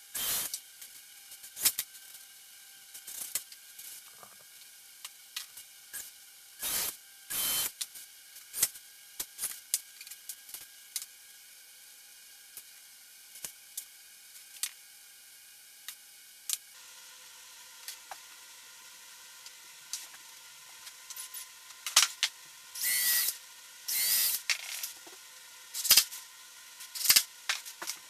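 Woodworking assembly sounds: scattered clicks and knocks of plywood parts, clamps and tools being handled, with several short hissing bursts.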